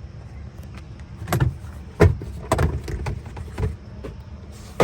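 Five or six sharp knocks and clunks, the loudest about two seconds in, as trim and panels in the back of a 1996 Honda Civic hatchback are handled.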